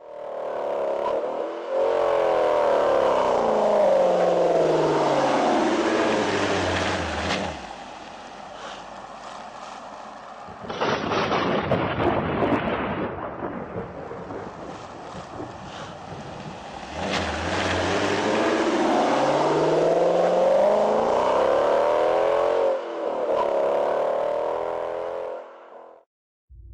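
Car engine, loud, its pitch sliding down over several seconds, then after a short burst of hissing noise climbing again over several seconds, as in revving or a car passing.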